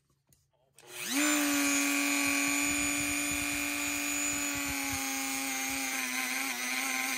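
Dremel rotary tool with a wire brush wheel spinning up about a second in, then running at a steady high whine while brushing dirt out of the inside of a pocket knife.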